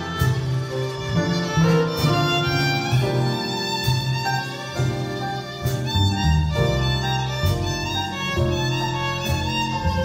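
Small jazz band playing live, with a violin carrying the melody over upright bass and drums, cymbal strokes cutting through every second or so.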